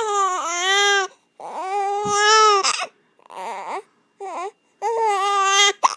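A seven-and-a-half-week-old baby crying in a string of about five high-pitched wails, each under a second to a second and a half long with short breaks between them. He is upset by hiccups.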